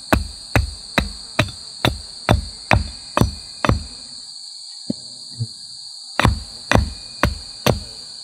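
Axe blows on a wooden stick, about two a second, pausing for a couple of seconds midway with two light taps before the chopping resumes. A steady high-pitched drone runs beneath.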